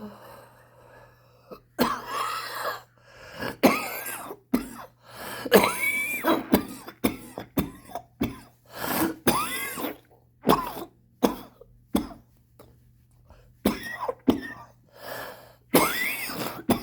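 A smoker's long coughing fit: some twenty hard, hacking coughs in quick clusters, with rasping, wheezy breaths and throat-clearing between them. It is typical of a smoker's cough.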